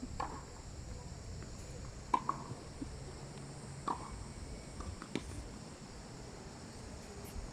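Tennis balls struck with rackets, a sharp pock about every one and a half to two seconds, four in all, the second the loudest, over a low rumble of wind on the microphone.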